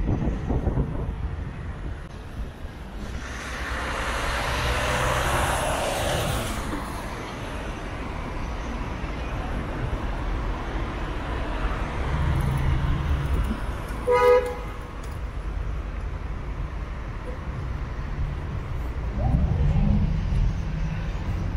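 Street traffic rumbling, with a vehicle passing a few seconds in. About fourteen seconds in, a vehicle horn gives one short toot.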